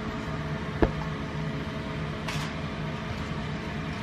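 Steady hum of a running kitchen appliance, with one sharp knock about a second in.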